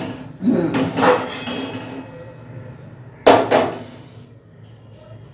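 A kitchen utensil strikes a dish sharply once, about three seconds in, and rings out briefly. Near the start there is a short vocal sound, with quieter dish-handling clinks in between.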